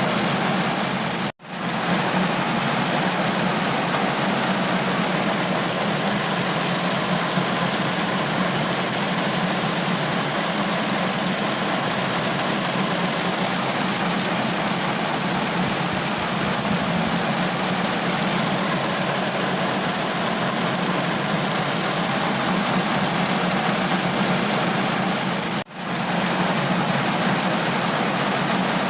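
Steady, unbroken rain. It drops out for an instant about a second in and again near the end.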